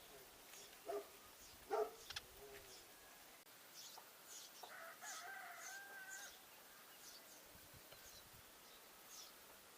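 Sparrows chirping faintly in short scattered chirps. Two short, louder calls come in the first two seconds, and a distant rooster gives one drawn-out crow around the middle.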